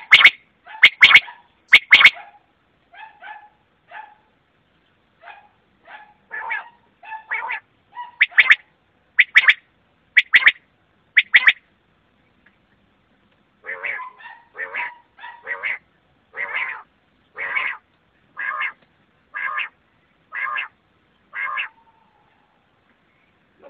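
Common quail calling: a run of short calls, some in quick pairs, with a few sharp clicks among the first ones. After a pause of about two seconds in the middle, the calls come evenly at about one a second and stop near the end.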